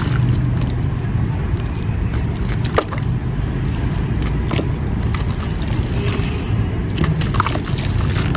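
Marble powder chunks being crumbled with water: a steady low grinding crush with scattered small sharp crackles.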